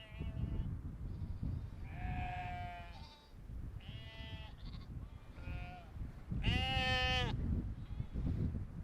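Sheep bleating, about five calls, the last one the longest and loudest, over a steady low rumble.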